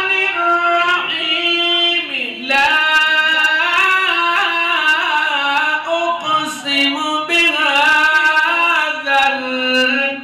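A man reciting the Quran in the melodic, drawn-out tajweed style, holding long ornamented notes. There is a brief break with a falling glide about two seconds in, after which the voice resumes a long wavering phrase.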